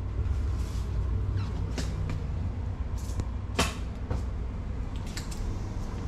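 Steady low hum of an indoor shop, with a few scattered sharp clicks and knocks; the loudest knock comes about three and a half seconds in.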